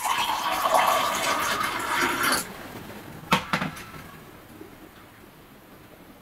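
Liquid poured in a stream from a plastic blender jug into a glass, splashing for about two and a half seconds and stopping sharply; about a second later come two short knocks in quick succession.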